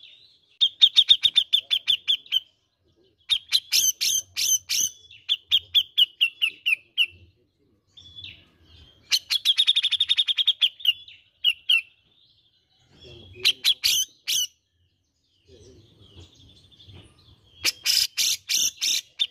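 Grey-cheeked bulbul (cucak jenggot) singing: rapid chattering trills in phrases of one to two seconds, separated by short pauses, with some sharper, harsher notes mixed in.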